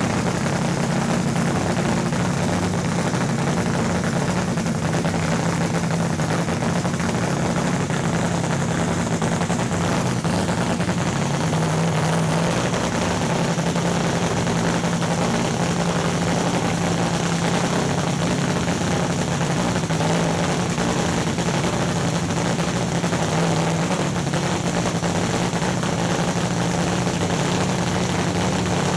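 Top Fuel dragster's supercharged nitromethane V8 running at a steady idle during its pit warm-up, loud and even with no revs.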